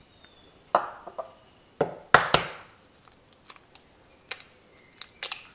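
A few light knocks and taps, the loudest about two seconds in with a brief metallic ring: an egg being cracked against the rim of a stainless steel mixing bowl.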